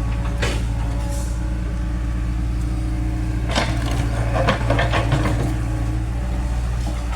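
Excavator diesel engine running steadily, with cracking and crunching of broken material: a couple of sharp cracks near the start and a cluster of crunching from about halfway through.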